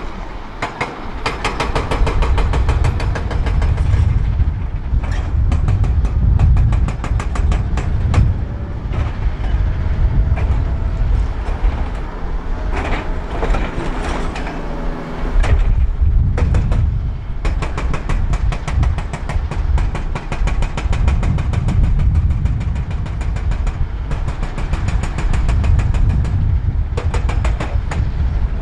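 A Volvo wheel loader's diesel engine working under load: a heavy low rumble with a dense, even clatter, and a whining tone that comes in around the middle of the stretch.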